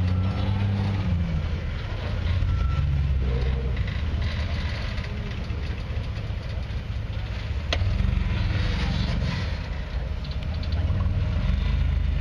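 Off-road vehicle engine running and revving, its pitch dropping in the first second or so and then settling into a steady low rumble.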